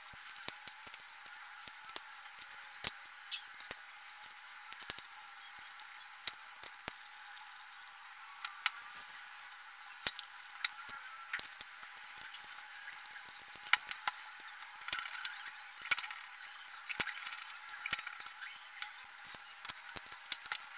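Irregular sharp plastic clicks, taps and rattles from a JBL Pulse Bluetooth speaker's plastic chassis being pried apart by hand with a small screwdriver.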